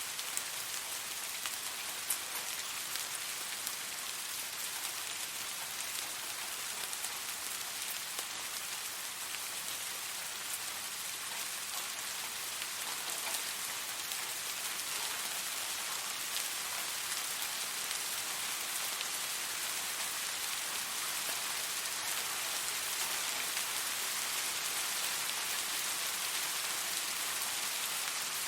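Steady rain falling, an even hiss with scattered individual drop ticks, unchanging throughout.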